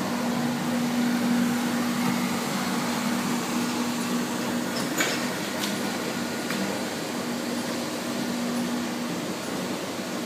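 Steady mechanical hum over a hiss, with a sharp click about halfway through.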